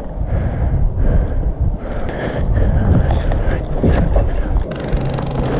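Loud low rumbling and rustling on the microphone from a player moving with the camera, with a few sharp knocks partway through.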